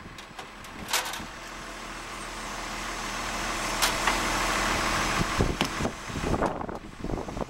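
A motor vehicle's engine passing on the road below, growing steadily louder over about four seconds and then falling away, with a knock about a second in. Near the end come a few short scraping strokes of work on the stone.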